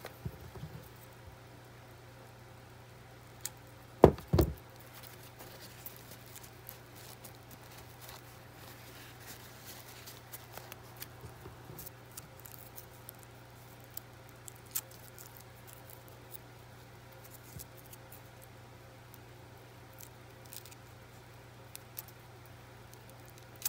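Faint scattered clicks and rustles of fingers working a dried, carded brown trout gill and picking off its cartilage, over a steady low hum. A loud double thump comes about four seconds in.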